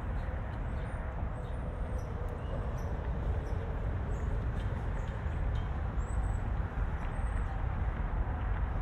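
Steady urban outdoor ambience: a continuous low traffic rumble, with brief high bird chirps scattered through it.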